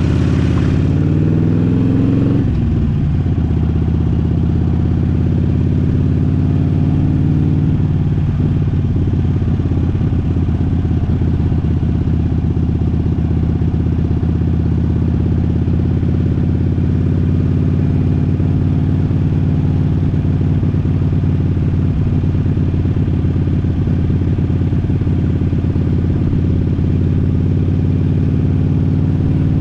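Harley-Davidson V-twin motorcycle engine running under way. It rises in pitch as the bike accelerates for the first two seconds, drops sharply, then runs steadily at cruising speed.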